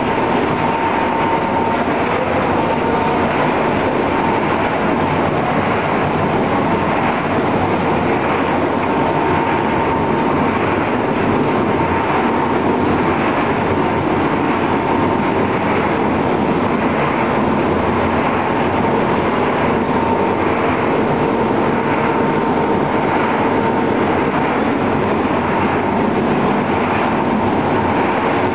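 Cheese-curl snack processing line machinery running: a loud, steady mechanical noise from the conveyors and rotating seasoning drum, with a thin steady whine in it.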